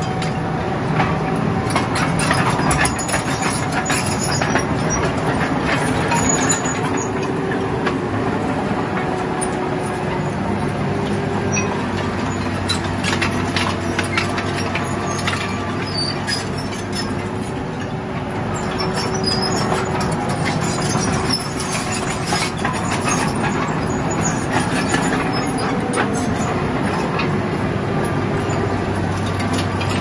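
Small crawler bulldozer's diesel engine running steadily under load, with frequent clanking from its steel tracks and knocks of rock as it pushes rocky soil with the blade.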